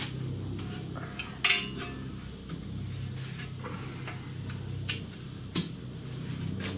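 Metal hand tools clinking and clattering against each other, a few sharp clanks, the loudest about one and a half seconds in with a short ring, over a low steady hum.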